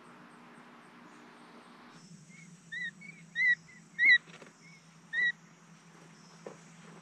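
Newly hatched quail chicks peeping: about eight short, high peeps, four of them loud, between two and five seconds in. A faint steady hum comes before them.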